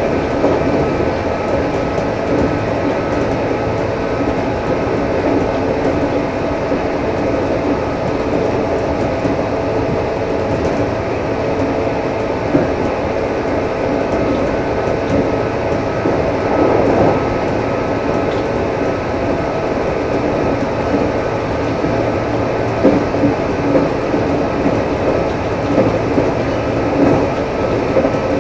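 JR 211 series electric train running at line speed, heard aboard its motor car with externally ventilated traction motors: a loud, steady motor and fan whine over wheel and track rumble. A few rail-joint knocks come in the second half.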